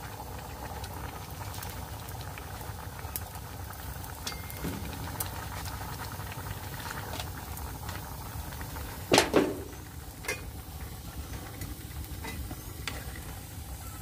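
Pot of water at a rolling boil over a wood fire as leafy greens are pushed in and stirred with chopsticks, with a few light clicks and one brief loud sound about nine seconds in.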